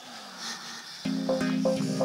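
Background music comes in about a second in: a held low chord under short, quickly repeated notes.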